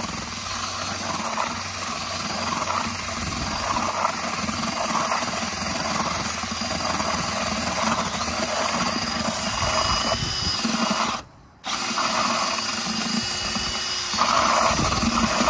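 Handheld power drill spinning a paddle mixer through cement mix in a plastic bucket. It stops for about half a second about eleven seconds in, then starts again.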